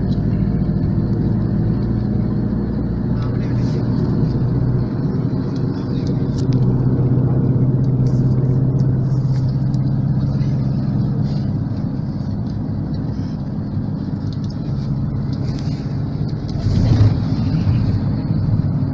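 Engine and road noise heard from inside a moving van's cabin: a steady low drone whose engine note shifts a couple of times, briefly louder near the end.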